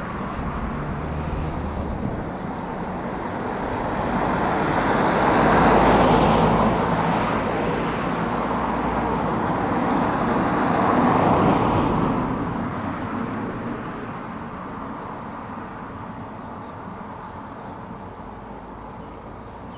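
Road traffic going by: vehicles pass close, swelling loudest about six seconds in and again about eleven seconds in, then the sound dies away.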